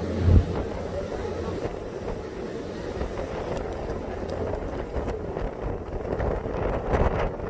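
Tour boat's engine running under way with wind buffeting the microphone, a low thump about a third of a second in and rougher gusts near the end.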